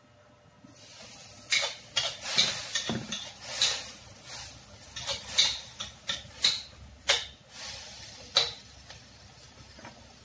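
Metal spatula scraping and clanking against a wok, stir-frying sizzling pork. About a dozen sharp strokes come irregularly over a steady frying hiss that begins about a second in, and the strokes stop near the end.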